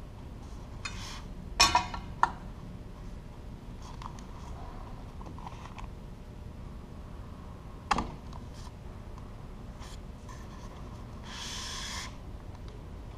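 Hand-handling of winch parts and tools on a workbench: a few sharp clicks and clinks of small hard parts about one and a half to two seconds in, another around eight seconds, and a brief rustling scrape near the end, over a steady low room hum.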